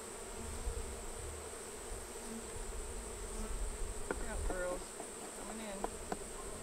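Honeybees buzzing around an opened wooden hive, a steady hum, over a steady high-pitched insect trill. A few brief sharp sounds come about four to five seconds in.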